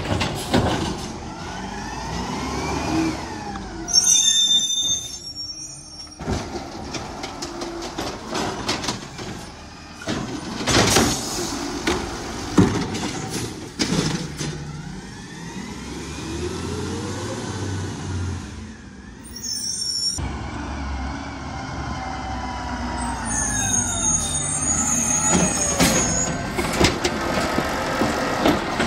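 Automated side-loader garbage truck at work: the diesel engine revs up and down with the lifting arm's hydraulics, air brakes hiss several times, and knocks come from the arm and carts.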